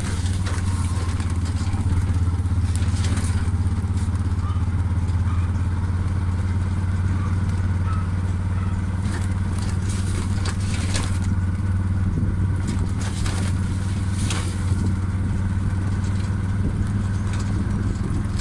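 A motor vehicle's engine running steadily with a low hum, with scattered knocks and rattles as it moves along the road.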